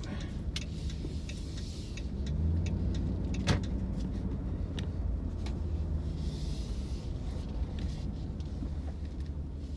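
Pickup truck cabin noise while driving: a steady low engine and road rumble, with a few light ticks and one sharp click about three and a half seconds in.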